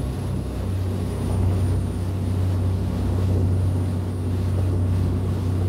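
Steady low drone of a boat's engine running under way, with a haze of water and wind noise.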